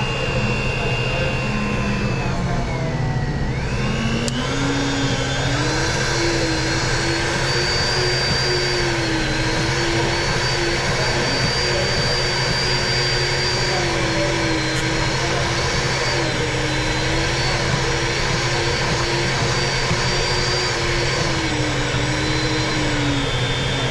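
Electric milkshake mixer running steadily on a shake. Its motor whine drops about three seconds in, then climbs back to a higher pitch and holds there, wavering slightly.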